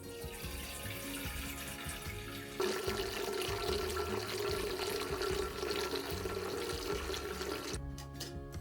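Kitchen tap running into a sink. The flow gets louder about two and a half seconds in, then is shut off shortly before the end.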